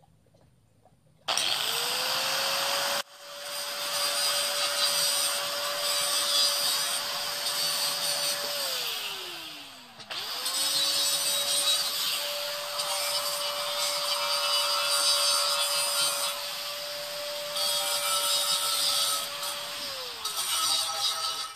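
Handheld angle grinder grinding steel, run twice. Each time the motor spins up to a steady whine under a harsh grinding hiss, then winds down with a falling pitch when switched off.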